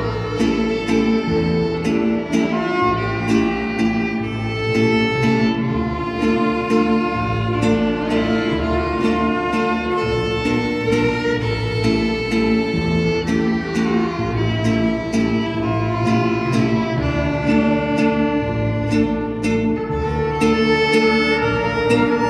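Mariachi-style string band playing an instrumental passage: violins carry the melody over guitars and a plucked bass line.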